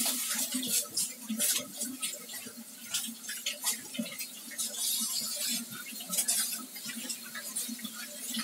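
Hands being washed at a kitchen sink: a run of irregular small splashes, taps and clinks rather than a steady stream from the tap.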